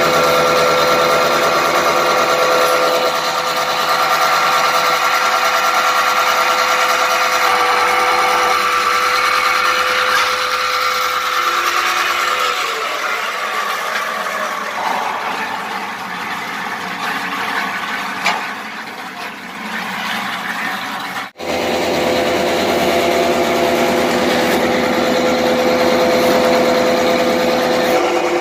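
Electric motor of a concrete block-making press running with a steady hum while another block is moulded. The hum weakens around halfway, drops out abruptly for a moment about two-thirds in, then returns.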